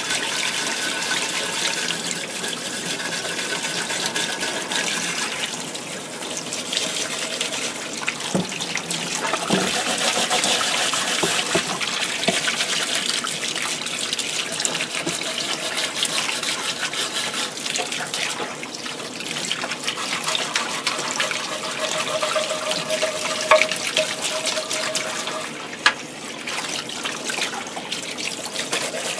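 A faucet runs steadily into a utility sink, the water splashing over a painted Bakelite radio cabinet piece while a brush scrubs off paint softened with oven cleaner. A few sharp knocks sound along the way.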